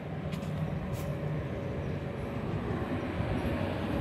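Regional passenger train rolling slowly along the platform as it comes into the station: a steady low rumble with a faint held whine and a couple of light clicks in the first second.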